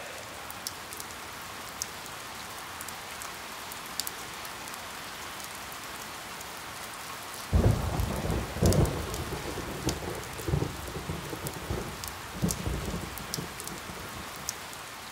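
Steady rain, with scattered sharp ticks of drops. A little past halfway, thunder breaks in loudly and keeps rumbling in rolling swells.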